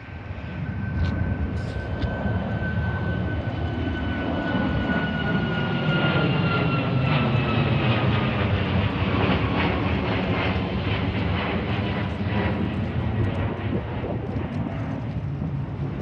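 Boeing 737 MAX 9's two CFM LEAP-1B turbofans at takeoff power as the jet climbs out overhead: a loud roar with a high buzzing tone that slowly falls in pitch as the plane passes.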